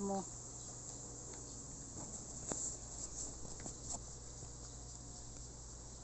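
Steady high-pitched chorus of insects such as crickets, with a low steady hum beneath it and a few faint taps in the middle.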